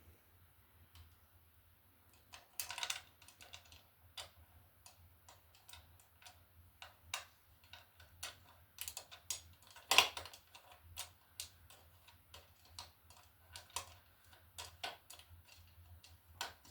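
Irregular small clicks, rattles and knocks of hands fitting a wheel set to an oil-filled radiator and screwing wing nuts onto it, with a louder knock about two-thirds of the way through.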